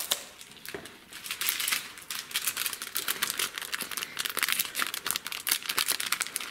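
A small clear plastic packet of sprinkles crinkling in a dense run of quick crackles as fingers pinch and work at its top.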